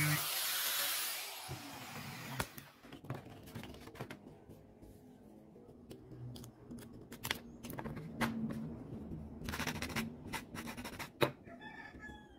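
An angle grinder's noise fades out over the first second or so. Then come scattered sharp snips of scissors cutting a thin shiny strip of sheet material, some single and some in quick runs.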